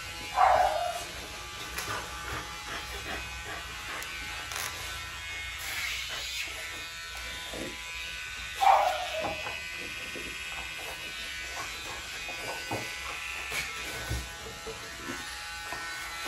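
Electric pet nail grinder buzzing steadily as it files a French Bulldog's nails. The dog gives two brief loud cries, about half a second in and again near nine seconds.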